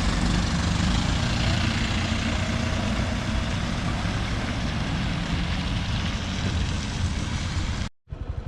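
Vehicle engine running steadily under a haze of road and wind noise, heard from a moving vehicle. The sound cuts off abruptly near the end.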